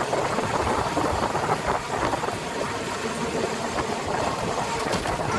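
A motor vehicle's engine running steadily, with no speech over it.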